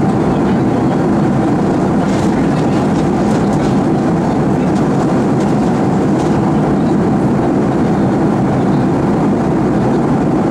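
Steady cabin noise inside a Boeing 737 airliner in flight: jet engines and rushing air blended into one even, deep rumble.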